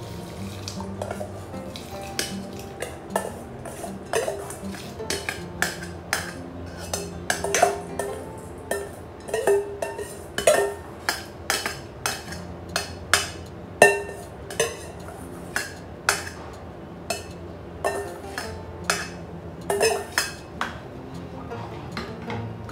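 Metal spoon scraping and knocking against a stainless steel bowl and pot as rice is tipped into the pot, then stirring the liquid with the spoon clinking irregularly on the pot's sides.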